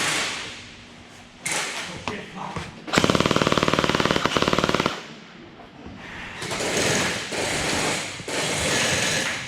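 Electric gel blaster firing one rapid full-auto burst about two seconds long, starting about three seconds in, its gearbox cycling in quick, even strokes.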